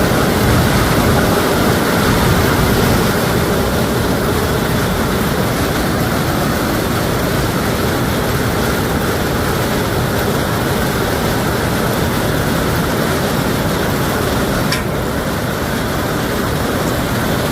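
Hailstorm: hail and heavy rain coming down in a steady, dense rush of noise, with one brief click near the end.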